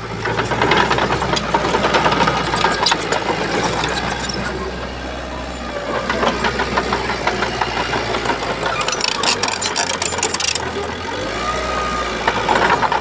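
Shantui bulldozer's diesel engine working under load, getting louder about half a second in, with a steady clattering over the engine note.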